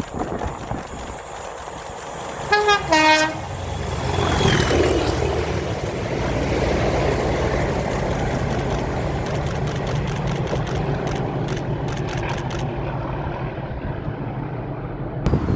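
A diesel locomotive's two-tone horn sounds briefly, a higher note then a lower one, then a Class 37's English Electric V12 diesel engine fires up and runs with a steady rumble.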